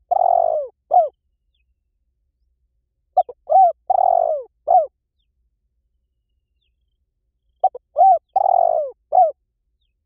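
Spotted dove cooing. Each phrase is a few short coos with one longer, rougher coo in the middle, and the phrase repeats about every four seconds: one phrase ends about a second in, and two more full phrases follow.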